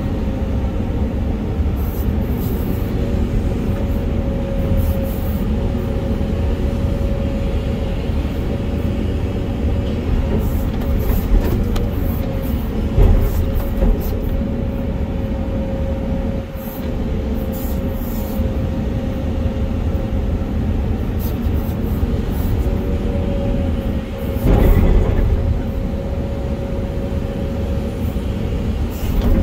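Volvo EC480EL excavator's diesel engine and hydraulics running under digging load, heard from inside the cab as a steady drone with a steady whine over it. Two louder thumps come through, around the middle and again toward the end, as the bucket works the dirt.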